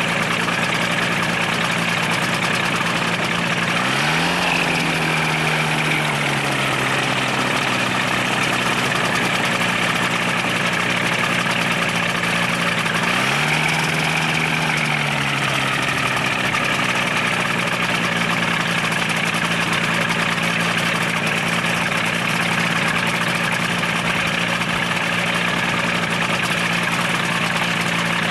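Microlight trike's engine and propeller running on the ground at a steady low speed. It revs up quickly twice, about four seconds in and again about thirteen seconds in, and each time eases back down over a couple of seconds.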